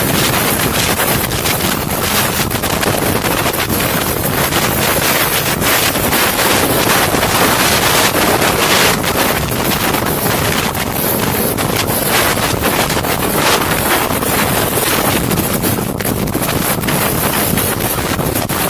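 Helicopter hovering: steady, loud rotor and engine noise with heavy wind buffeting on the microphone, heard from the open door of the helicopter.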